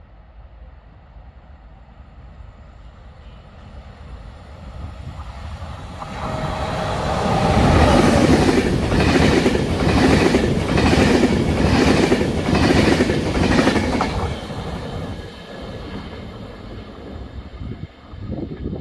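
Trenitalia regional electric train passing through the station close by: the rumble builds, peaks in a loud run of rhythmic wheel clatter, a little more than one stroke per second, and fades away as the train recedes.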